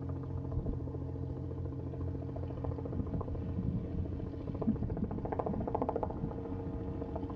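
Aircraft engine running steadily: a low hum of several even tones, with a rougher, uneven patch about five to six seconds in.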